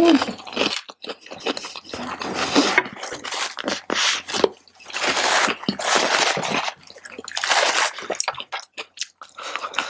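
Close-miked chewing and wet mouth sounds of a person eating fried rice, with many irregular short clicks and moist bursts.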